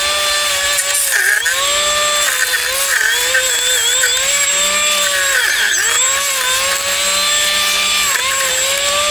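A brushless drone motor spins a 3D-printed cutting blade with a steady high whine. The pitch sags again and again and recovers each time, as the blade bogs down in the grass and weeds it is cutting.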